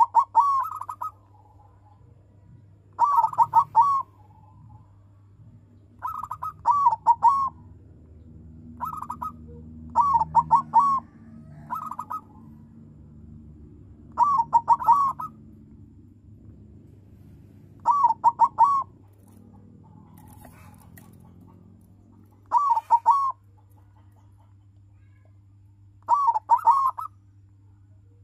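Silver colour-variety zebra dove (perkutut) cooing its full-voiced song. It repeats a short phrase of several quick coos every three to four seconds.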